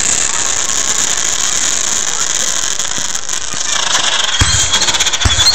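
Aerial fireworks crackling steadily, with two low thumps near the end.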